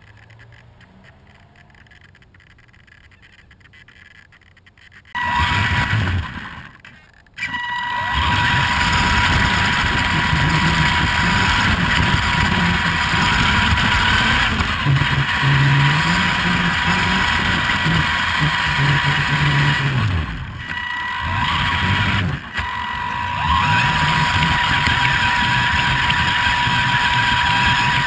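Vaterra Twin Hammers RC truck's electric drive heard from on board: a steady high motor whine over a rough rumble of the tyres on the ground. It is faint for the first five seconds, then starts suddenly, with brief let-ups about seven seconds in and again around twenty seconds in.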